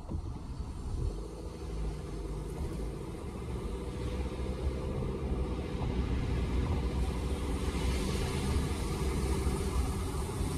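Car engine and tyre noise heard from inside the cabin, growing louder as the car picks up speed up an overpass, with a tyre hiss on the wet road that swells in the second half.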